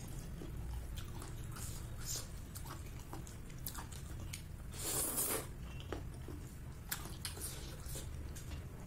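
Close-miked eating sounds: chewing and wet mouth clicks of a person eating dumplings and noodles, with one louder slurp of noodles about five seconds in.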